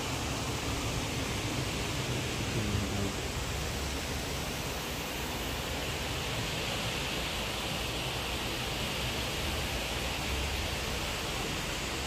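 Steady rushing of running water, an even, unbroken hiss.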